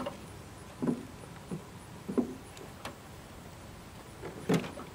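A few short knocks and rubs from the multimeter and its test leads being handled while the probes are held on the battery terminals, the loudest about four and a half seconds in.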